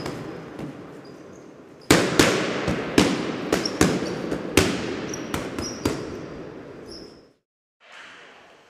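Intro sound effects: a quick run of about a dozen sharp, echoing hits, mostly between two and six seconds in, fading and cutting off abruptly; after a short gap comes faint hall ambience.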